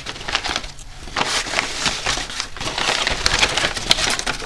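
Brown kraft-paper wrapping being crumpled and pulled open by hand, a dense crackling rustle with a short lull about a second in.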